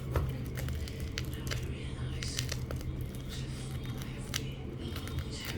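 Irregular small clicks and rustles of objects being handled, over a steady low hum.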